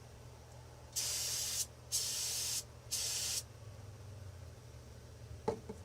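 Aerosol can of carb cleaner sprayed in three short bursts of hiss, degreasing threaded parts of an adjustable wrench. A small click follows near the end.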